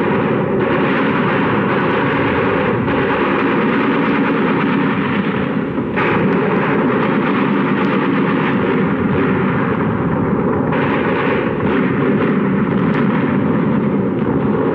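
Continuous battle sounds on an old film soundtrack: dense gunfire mixed with explosions and artillery blasts, steady and loud throughout.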